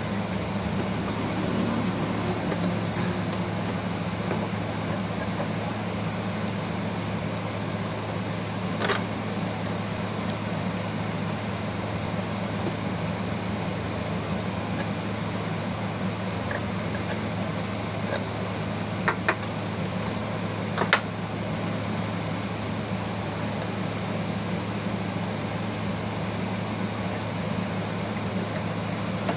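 Steady low hum of a fan or air conditioner, with a few sharp clicks of small tools knocking against the sewing machine's parts as it is cleaned, once about nine seconds in and several close together around twenty seconds in.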